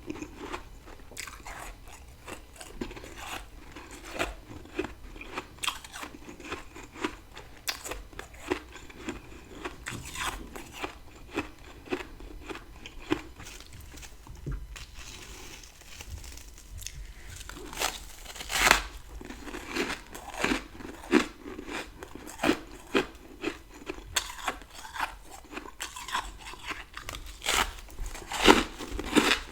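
Close-miked biting and chewing of freezer frost: a rapid run of crisp crunches, with a short lull around the middle and a loud bite just after it.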